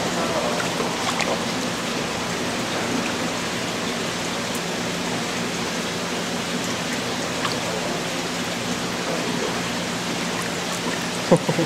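Steady rushing of water circulating in a fish holding tank, with a faint low hum under it. A couple of sharp clicks near the end.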